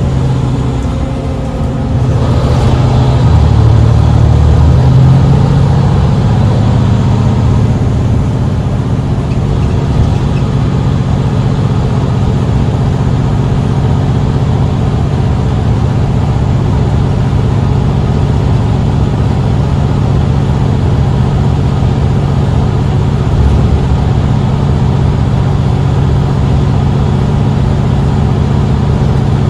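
Mercedes-Benz Citaro C2 city bus engine pulling hard: the sound swells about two seconds in, then settles into a steady drone as the bus runs on.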